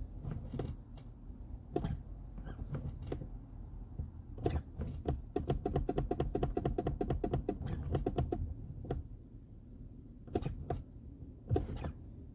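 Honda PCX 125 scooter's starting system clicking as the engine is tried and fails to start: scattered clicks, then a rapid, even run of clicks for about three seconds in the middle, with no engine catching.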